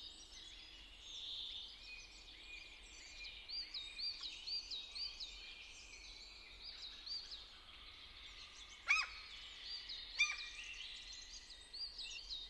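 Small birds chirping faintly in quick repeated series of short, high notes, with two louder sharp chirps about a second apart near the end.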